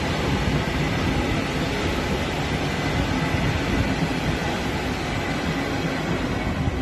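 Belgian I11 intercity coaches rolling past on the adjacent track: a loud, steady rumble of wheels on rail.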